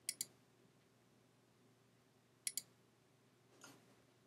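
Near silence broken by three quick double clicks, about two seconds apart.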